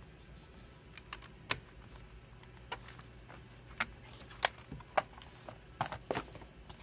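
A plastic Blu-ray case being handled: a string of separate sharp plastic clicks and snaps as its hinged disc tray is turned and the case is shut, the closest cluster near the end.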